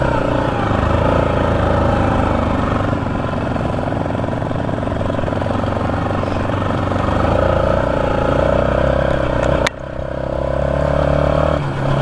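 Quad (ATV) engine running under throttle, its note rising and falling with the throttle. The engine drops away sharply for a moment with a click about ten seconds in, then picks up again.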